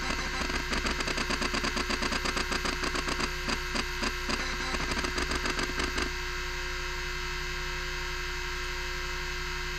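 Miniscribe 3425 20 MB MFM hard drive in use: its stepper-motor head actuator clatters in rapid clicks as the heads seek, over the loud steady hum and whine of the spindle. The clicking stops about six seconds in, leaving only the spindle running.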